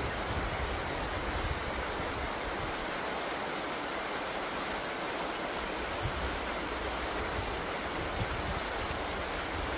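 Steady rushing water, as of a stream or waterfall, with an uneven low rumble underneath.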